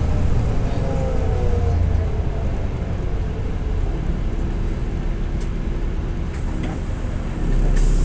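LiAZ-5292 city bus heard from inside as it slows to a stop: the drivetrain whine falls in pitch over the first couple of seconds, then the engine rumbles steadily at rest. Near the end comes a click, and the low rumble grows louder.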